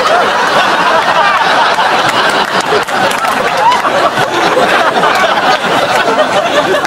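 Audience laughing and chuckling, many voices together at a steady level.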